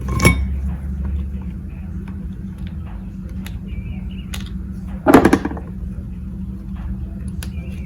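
Faint clicks and taps of small metal parts being handled while a nut is threaded onto a carburetor stud by hand, over a steady low hum. One short, louder sound about five seconds in.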